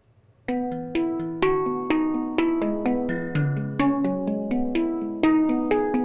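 Sampled handpan from the Chris Hein Octa library, played with the fingers: a melodic run of ringing, struck notes about two a second, starting about half a second in. It is heard dry, with the channel-strip plugin bypassed, so the note attacks are not compressed.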